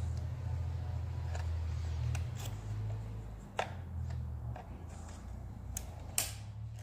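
Several sharp plastic clicks and small rattles as a drill bit chuck is seated and turned in the alignment port of a Drill Doctor sharpener, the loudest click about three and a half seconds in, over a steady low hum.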